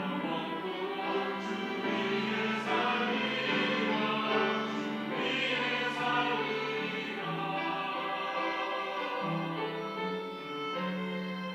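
Church choir singing a sacred anthem in long, held chords.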